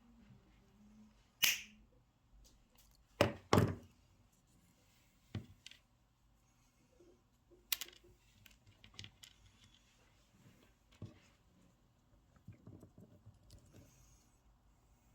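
Small parts and tools handled on a work surface: scattered sharp clicks and knocks, the loudest a single knock about a second and a half in and a close pair a couple of seconds later, then lighter taps and clicks.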